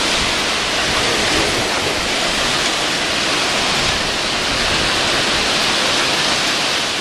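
Torrential rain and strong wind in a severe storm: a loud, steady roar of downpour, with gusts rumbling on the microphone.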